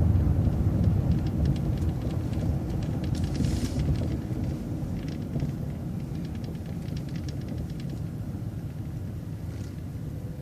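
Transit bus running, heard from inside: a low engine and road rumble that slowly grows quieter, with light clicking and rattling in the middle.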